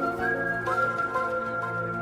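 Background music: a gentle melody of held notes over a sustained low tone.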